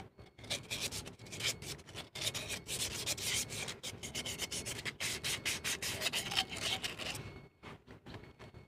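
Hands rubbing and scraping over a removed truck clutch master cylinder and its rubber dust boot as it is turned over and handled. The rubbing is irregular and goes quiet about seven seconds in.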